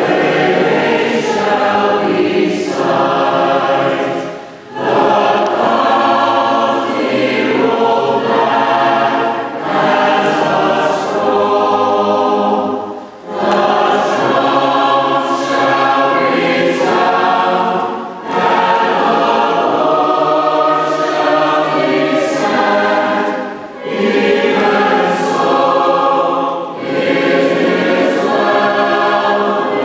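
High school chamber choir singing a sacred song in long sustained phrases, with short breaks for breath between them.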